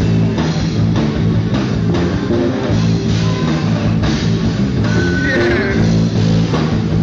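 Live rock band playing: electric guitars and a drum kit with a steady beat.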